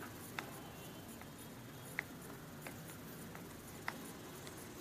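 Faint, sharp little clicks and taps of a small screwdriver working on an iPhone's bottom case screws, about seven at irregular spacing over a steady hiss, the clearest about two seconds in and again near four seconds.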